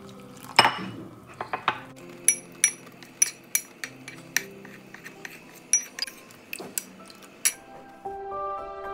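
A metal spoon clinking repeatedly against a bowl while mixing: about sixteen sharp, ringing strikes at an uneven pace, roughly two a second. Soft background music runs underneath and grows louder near the end.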